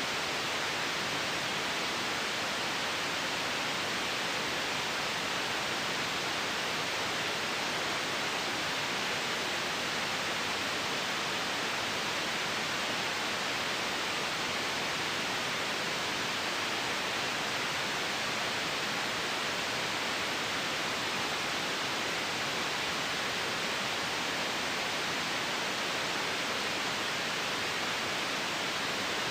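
Steady white noise: an even, unchanging hiss with no breaks or changes.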